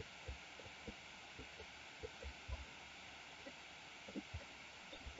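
Near silence: steady faint microphone hiss with scattered soft, irregular low thumps.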